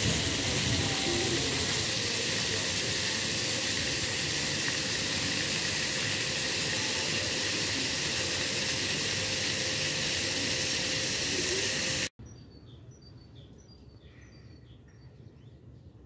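Jets of a dry plaza fountain spraying up from grates in the paving and falling back in a steady splashing hiss. It stops abruptly about twelve seconds in, leaving faint, short, repeated bird chirps.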